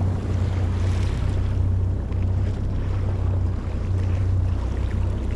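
Steady low hum of a boat's engine running on open water, with wind noise on the microphone and water around the hull.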